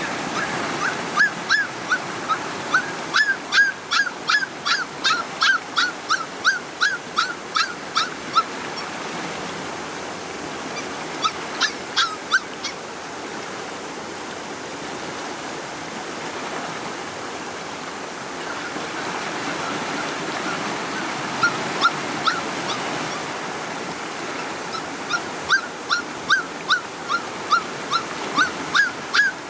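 Puppies crying in short, high-pitched yelps, about two or three a second, in several runs with pauses between, over a steady rush of floodwater.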